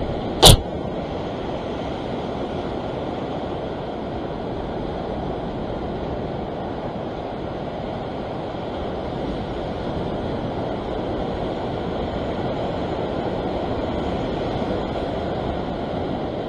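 Surf breaking and washing over the rocks below a sea ledge, a steady rushing noise. A single sharp, loud knock about half a second in.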